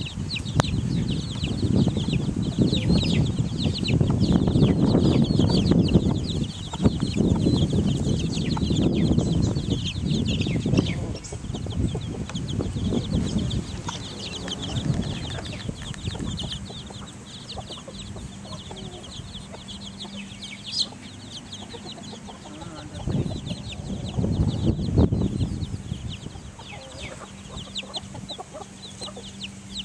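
A brood of young chicks, mostly Transylvanian Naked Necks, peeping constantly in many short, high chirps as they forage with their mother hen. A louder low rumbling noise runs under the peeping for the first half and comes back briefly near the end.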